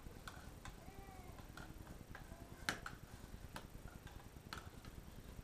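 Brushes and sticks stirring a salt, glue and paint mixture in small plastic cups: scattered light taps and clicks against the cup sides, with one sharper tap a little past halfway. A few faint short squeaks come in between.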